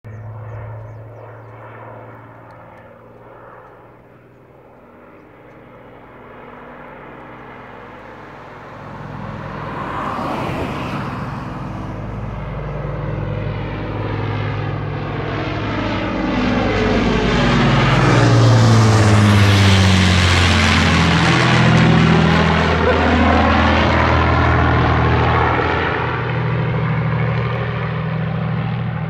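Avro Lancaster's four Rolls-Royce Merlin V12 piston engines droning in a low flypast: the sound builds as the bomber approaches, is loudest as it passes overhead about two-thirds of the way in, and falls in pitch as it moves away.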